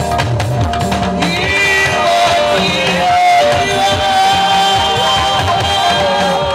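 Live gospel music: a lead singer holding long, wavering notes with a choir over a band with drums and guitar.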